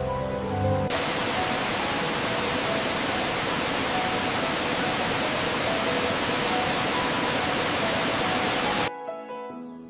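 A loud, even rushing hiss starts suddenly about a second in over faint background music, holds steady, and cuts off abruptly near the end, leaving the music.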